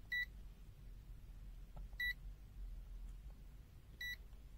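Multimeter beeping: three short, high-pitched electronic beeps, about two seconds apart.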